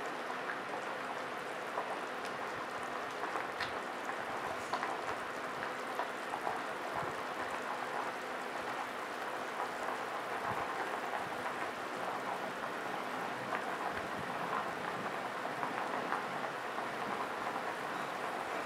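Stainless pot of chicken soup on an induction cooker coming to the boil: a steady hiss with many small pops and crackles of bubbles, getting a little busier in the second half.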